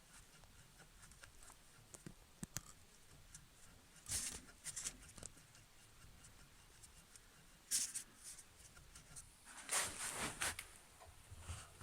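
Faint scattered rustling and scraping noises with a few sharp clicks, the longest rustle coming near the end.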